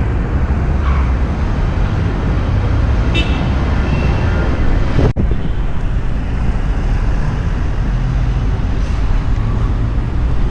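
Busy street traffic: a steady, loud rumble of vehicles. About three seconds in comes a brief high-pitched tone, and the recording cuts abruptly to a similar traffic scene about five seconds in.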